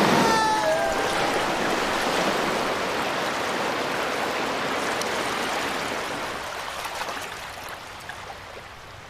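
Rushing torrent of water, a steady roar of flowing water that fades away gradually. A short falling yell sounds over it in the first second.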